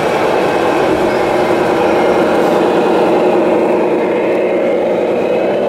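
Radio-controlled model truck driving by, with a steady engine-like drone over the din of a busy exhibition hall.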